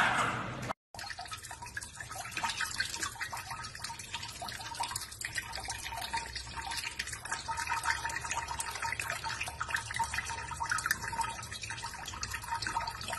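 Kitchen tap running, the water splashing and dripping onto hands and into a steel sink. Under a second in, a louder sound from before is cut off abruptly and the water starts after a brief gap.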